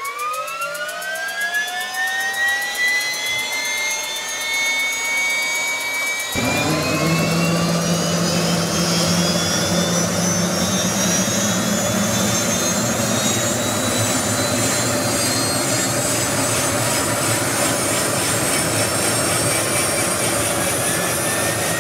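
MD 500 helicopter's turbine engine starting up. A whine climbs steadily in pitch, and about six seconds in a sudden, louder, deeper rushing sound joins it. The engine then runs on with a steady high whine as the main rotor begins turning.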